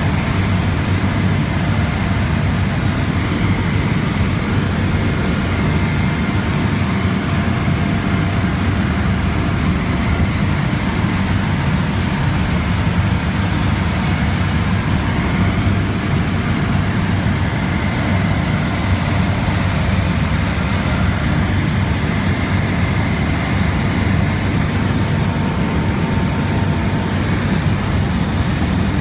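Textile-waste recycling line (openers, cleaners and carding rolls, 1300 mm wide) running with a steady, deep mechanical rumble and a faint hum.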